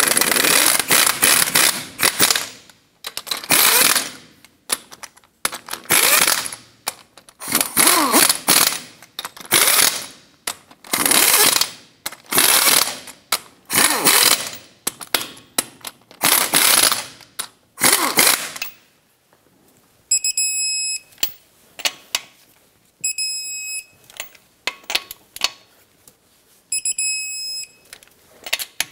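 An impact wrench runs the lug nuts down in about a dozen short bursts. After a short pause come clicks and short high ringing tones every few seconds as the lug nuts are torqued down with a torque wrench.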